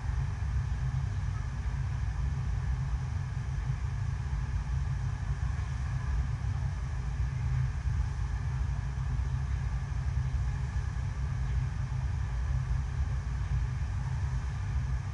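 Steady low rumble of water rushing up an artificial sheet-wave ramp, driven by the ride's pumps.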